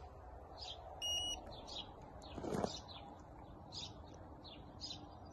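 Handheld FDX-B pet microchip scanner giving one short, steady beep about a second in, the signal that it has read the dog's implanted chip. Small birds chirp repeatedly throughout, and there is a brief knock of handling noise about two and a half seconds in.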